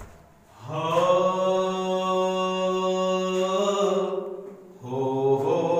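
A man singing long held notes without words: one steady note held for about three seconds, then a second one starting near the end.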